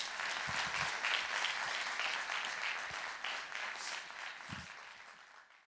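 Audience applauding with dense clapping. It dies away over the last second or so and then cuts off abruptly.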